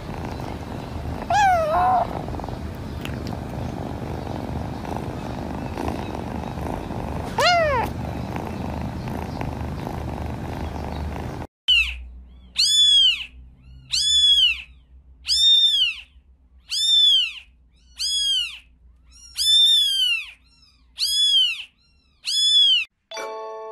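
A cat purring steadily, with two short mews over it about a second and a half and seven seconds in. Then a kitten mewing over and over: about nine high, arching calls a little over a second apart. Chiming music begins at the very end.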